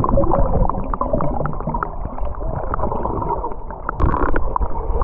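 Muffled pool water heard from underwater: gurgling and bubbling over a low rumble, with many small clicks and pops from swimmers moving through the water, and a brief louder rush about four seconds in.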